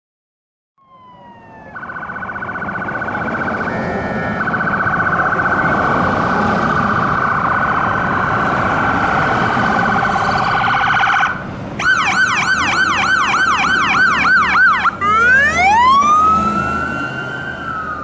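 Federal Signal electronic siren on a Dodge Ram 5500 brush truck, running through its tones: a fast warble, then a yelp at about three sweeps a second, then a wail that rises and slowly falls. Engine and road noise run underneath.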